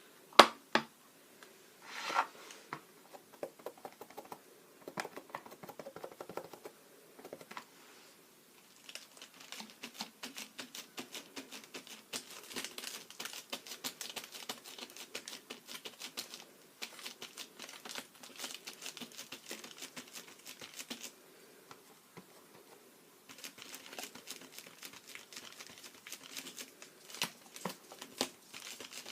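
Sponge dabbing acrylic paint through a stencil: long runs of quick, soft pattering taps, broken by a short pause a little past the middle. A couple of sharper knocks in the first few seconds.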